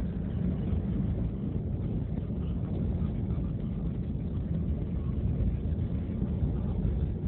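Car driving on an unpaved dirt road, heard from inside the cabin: a steady low rumble of engine and tyres.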